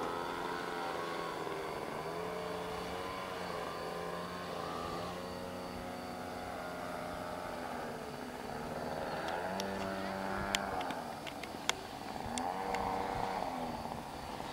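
Caudron C.366 Atalante's propeller engine running in flight overhead, its pitch sweeping down and back up as the plane passes and turns. A few sharp clicks come about two-thirds of the way in.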